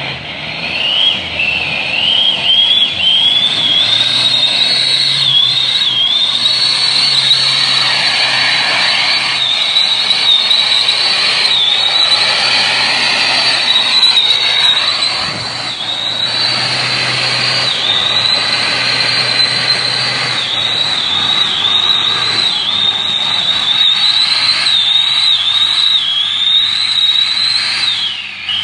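Off-road vehicle engine running hard under load, with a loud high whine that wavers in pitch throughout and a brief drop near the end.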